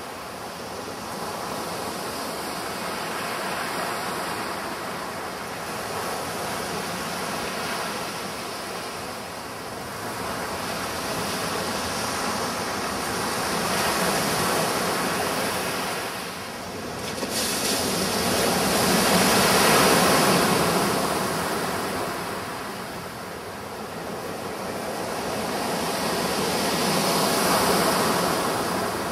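Sea waves breaking and washing up on a beach, the surf swelling and easing in slow surges every several seconds, loudest about two-thirds of the way through.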